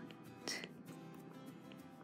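Quiet background music, with one short click about half a second in.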